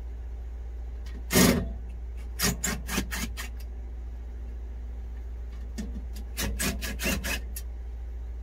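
Screws being worked out of an RV power converter box cover: a single knock about a second and a half in, then two runs of short scraping, rubbing strokes.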